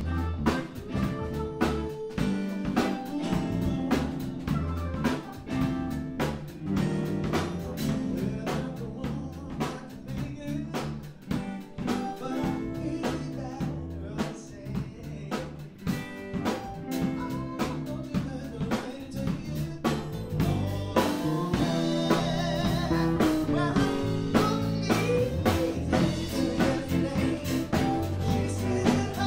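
Live band playing: electric bass guitar and drum kit keeping a steady beat, with singing over them.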